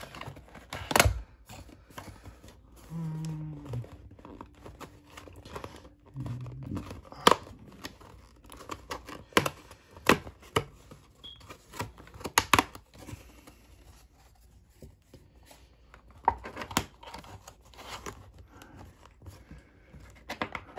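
Cardboard booster box being torn open and handled: tearing and rustling of cardboard with irregular sharp taps and clicks, a few of them loud.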